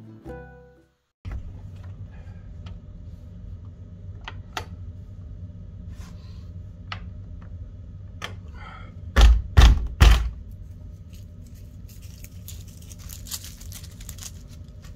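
Scattered clicks and knocks over a steady low rumble, with three loud, heavy thumps in quick succession about nine seconds in. A short tail of background music ends in the first second.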